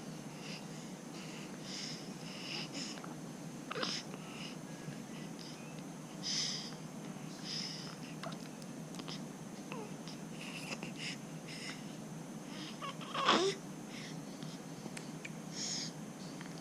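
A baby's small breathing, mouth and throat noises, short and scattered, with one louder short sound about thirteen seconds in.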